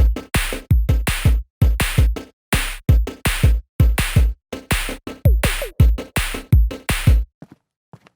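Electronic drum-machine beat with a heavy kick drum, about two to three hits a second, stopping about seven seconds in.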